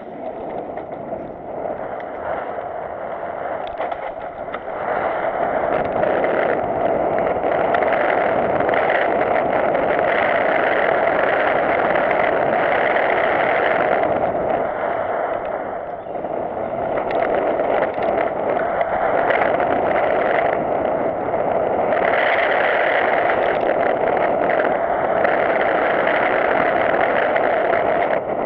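Mountain bike descending a loose dirt-and-stone singletrack: a steady rush of wind buffeting the camera microphone, with tyres crunching over the dirt and the bike rattling over bumps. It grows louder about five seconds in and dips briefly near the middle.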